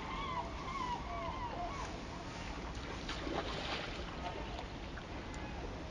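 Ducks quacking in a quick series that fades out by about a second and a half in, over a steady wash of river noise. A brief rush of noise comes about three seconds in.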